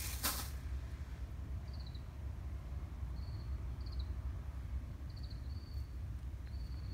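Outdoor ambience: a steady low rumble with short high chirps repeating every second or so, and a brief hiss about a quarter second in.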